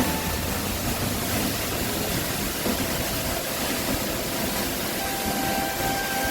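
Waterfall's steady rush of falling water. A faint thin steady tone comes in near the end.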